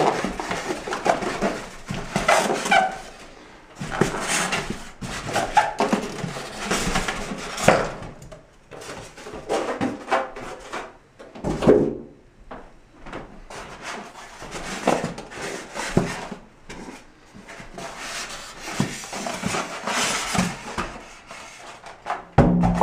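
Cardboard shipping box and packaging being handled as an iMac in its protective cover is lifted out: irregular rustling, scraping and knocks. Music comes in just before the end.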